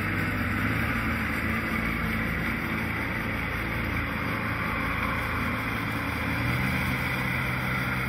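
A steady engine hum with an even hiss over it, unchanging until it cuts off abruptly.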